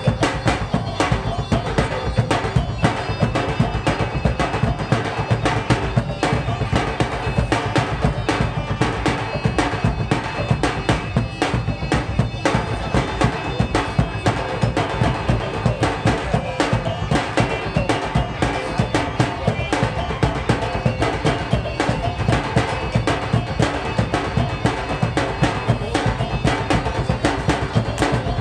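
Traditional Minangkabau silek accompaniment: drums beaten in a fast, steady rhythm with a reedy wind instrument holding a continuous melody over them.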